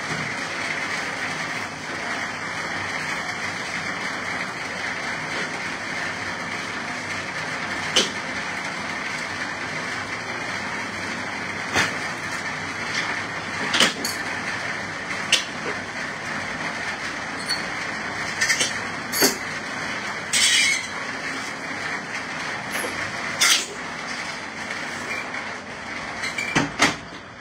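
Heavy rain making a steady loud hiss, with scattered knocks and clatters as the office window is being closed. The rain noise drops right at the end.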